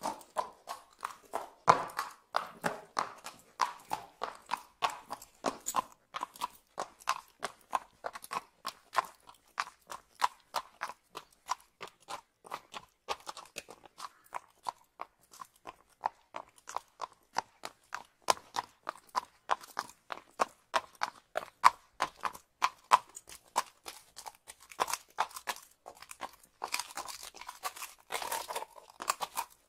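Horses' hooves clip-clopping on a paved street in an unbroken run of sharp clops, about three a second.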